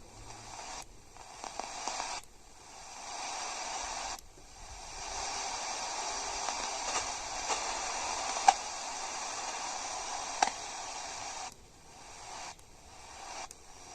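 Radio receiver static: a steady hiss with no station audible, cutting out and coming back several times, with a few sharp clicks.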